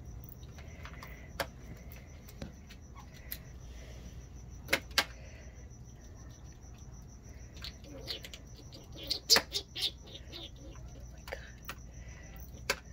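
Striped skunks eating from bowls on a wooden deck: scattered sharp crunches and clicks, two close together about five seconds in and a cluster around nine to ten seconds. A steady cricket trill runs behind them.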